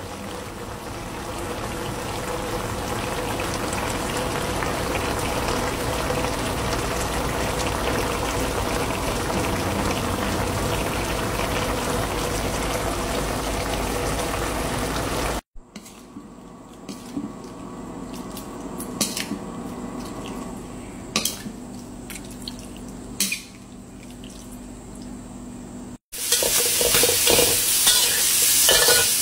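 Bottle gourd and pork stew boiling in a wok, a steady bubbling hiss for about fifteen seconds. After a cut comes a quieter stretch with a few sharp clicks, and near the end cubes of pork sizzle loudly in a pan as a spatula stirs them.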